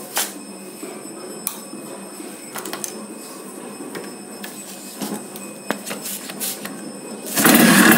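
Low background hiss with a few faint clicks. About seven seconds in, a Suzuki Shogun's two-stroke engine suddenly starts and runs loudly.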